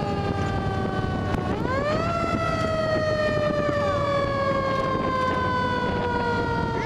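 Fire engine siren sounding over the rumble of the moving truck. Its tone slowly winds down, is wound back up quickly about a second and a half in, then slowly winds down again.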